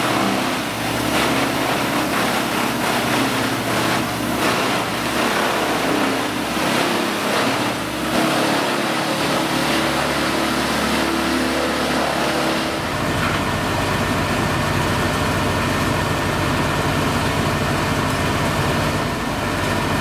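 Heavy machinery engines running at a tree-removal job: busy and changing for about twelve seconds, then abruptly settling into a steady, even engine drone.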